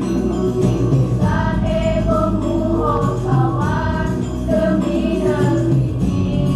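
School choir singing in several voices over musical accompaniment.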